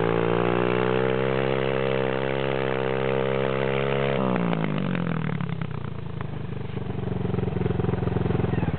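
Single-cylinder four-stroke Honda dirt bike held at high revs, its rear wheel spinning where it is stuck in deep snow. About four seconds in the revs drop sharply and the engine settles to a lower, uneven idle.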